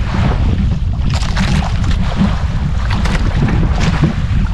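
Motorized outrigger boat under way: its engine running steadily underneath, with wind buffeting the microphone and water hissing and splashing past the hull in repeated surges.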